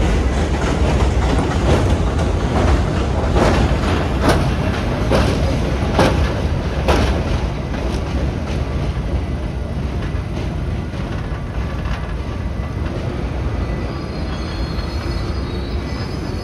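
New R211A subway cars rolling slowly on steel rails with a steady rumble, wheels clacking over rail joints about five times between roughly three and seven seconds in. Later the rumble eases a little and a faint high wheel squeal comes in near the end.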